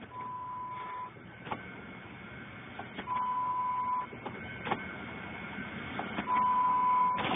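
Three electronic beeps at one steady pitch, each about a second long and about three seconds apart, with a few faint clicks between them.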